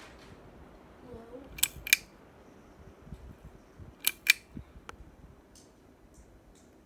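Two pairs of sharp clicks, the clicks in each pair a quarter second apart and the pairs about two and a half seconds apart, with a fainter click after the second pair.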